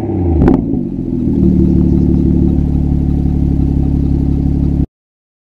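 BMW 240i's turbocharged straight-six through an M2 exhaust, coming down from a rev with one sharp pop about half a second in, then settling into a steady idle. The sound cuts off suddenly about a second before the end.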